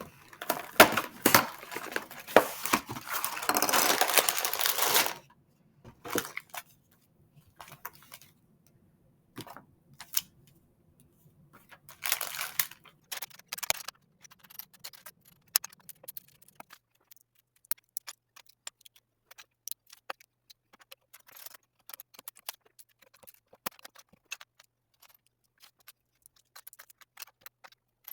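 Plastic LEGO packaging rustling and tearing with pieces rattling, twice, then scattered sharp clicks of LEGO bricks being handled and pressed together.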